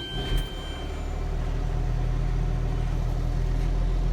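Tractor engine just started, catching and settling into a steady idle with a low, even drone that grows a little louder over the first second or two, heard from inside the closed cab.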